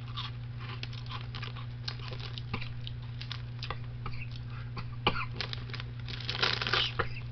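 Crunchy potato-fry snacks (TGI Fridays Crunchy Fries) being chewed close to the microphone: scattered small crackling crunches, with a louder burst of noise near the end.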